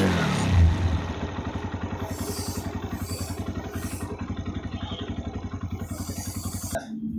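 TVS Raider 125 single-cylinder motorcycle engine easing off a short rev in the first second, then idling steadily with an even pulse. It cuts off suddenly near the end.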